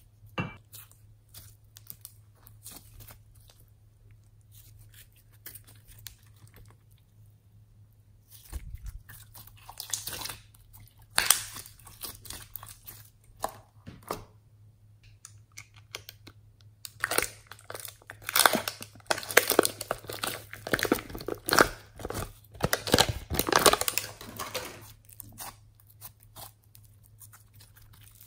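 Hands squeezing, pressing and stretching glossy glitter slime, with sticky squelches and rapid crackling pops as trapped air bubbles burst. It is sparse and quiet at first and gets busier and louder in the second half.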